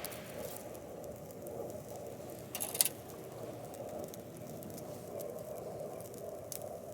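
Fire burning in a small solo-camping fire stand, crackling with scattered pops and one sharper pop about three seconds in.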